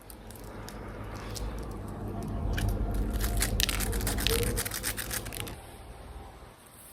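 Close-up chewing of crispy nuggets: a low mouth rumble with a cluster of sharp crunches, thickest in the middle, fading out near the end.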